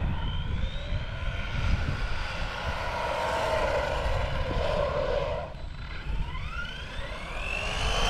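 Brushless electric motor of an Arrma Big Rock 3S RC truck whining, rising in pitch as the truck speeds up: once just after the start and again from about six seconds in. Wind buffets the microphone underneath.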